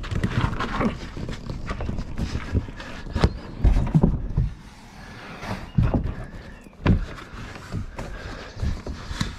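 Plastic Viking kayak being handled and lifted onto a car roof rack: several irregular knocks and thumps of the hull against the rack, the heaviest about four seconds in, amid scuffing and rubbing.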